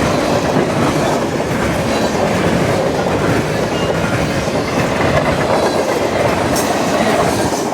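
Freight train's cars rolling past on the rails, a steady noise of steel wheels on track.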